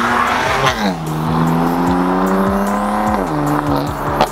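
BMW M4 Competition's twin-turbo straight-six with aftermarket downpipes accelerating hard, its revs climbing and then dropping at an upshift, twice: about a second in and about three seconds in. A sharp crack comes at the very end.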